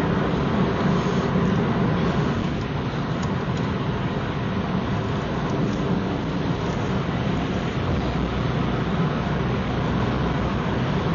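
Car engine and running gear noise, a steady low drone, with a deeper hum growing stronger about eight seconds in.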